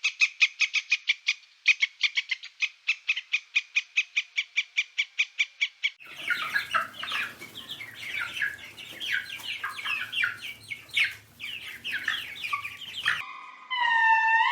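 Animal calls in three parts. First comes a fast, even series of short chirps, about six a second, for roughly six seconds. Then a crowd of overlapping short falling chirps, like a group of birds calling together. Near the end there are loud calls that fall in pitch, one after another.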